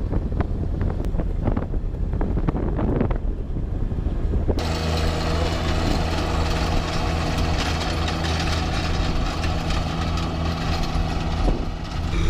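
A low vehicle rumble with scattered crunching on gravel. About four and a half seconds in it cuts to a John Deere 1025R compact tractor's three-cylinder diesel running steadily under heavy load, with its rear rotary tiller churning through wet sod.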